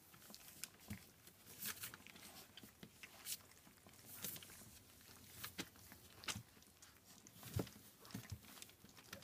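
German Shepherd puppies licking and chewing puppy mush off a hand and lap: faint, irregular wet smacking and lapping clicks.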